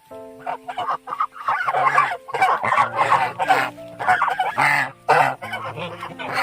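A flock of young Lion-head geese calling and honking over one another in repeated bursts.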